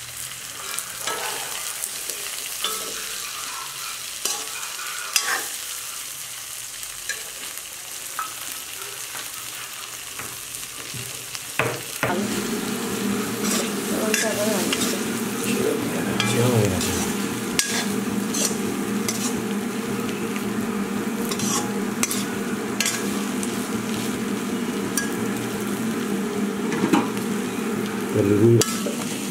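Chicken gizzards, liver and chopped onion sizzling in a hot wok, with the scrape and clink of a steel spoon stirring them. A steady low hum comes in about twelve seconds in.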